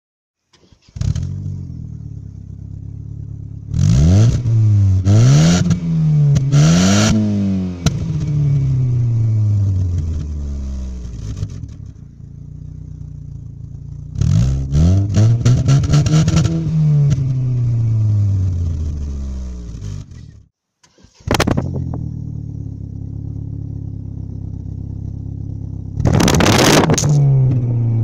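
1996 Opel Vectra's 1.6-litre 16-valve four-cylinder petrol engine idling and being revved through the exhaust: three quick blips close together, a longer rev that falls slowly back to idle, and one more blip near the end. The sound drops out briefly about two-thirds of the way in, then the idle resumes.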